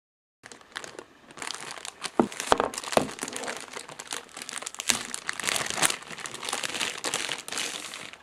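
Packaging crinkling as it is handled, irregular, with a few sharper crackles between about two and five seconds in; it stops abruptly at the end.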